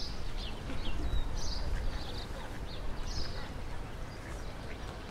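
Outdoor park ambience: a bird repeating a short, high chirping phrase about every second and a half, over a steady low rumble.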